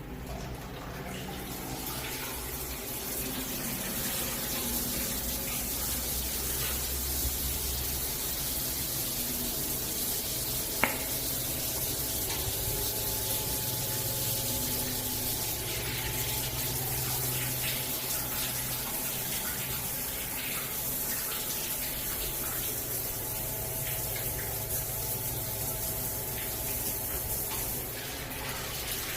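Water running steadily from a tap or shower head, an even hiss of spray, with a faint low hum underneath. A single sharp click sounds about eleven seconds in.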